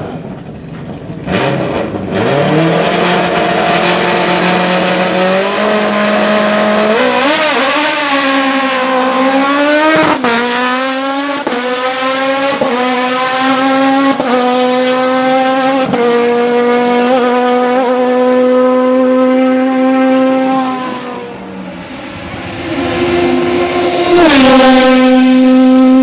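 Osella PA2000 hillclimb prototype's 2-litre Honda four-cylinder racing engine at high revs: a high-pitched wail that climbs in steps with brief breaks at the gear changes, then holds steady. It fades briefly about three-quarters of the way through and comes back loudest near the end.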